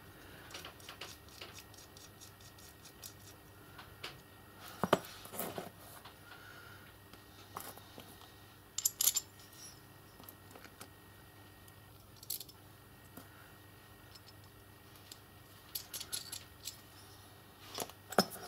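Small steel and brass coupler parts being handled and fitted together by hand: a nut threaded onto a bolt, and the steel arm set into a slotted brass bracket. There are scattered sharp metal clinks and light scrapes, with the loudest about five seconds in, around nine seconds, and a cluster near the end, over a faint steady hum.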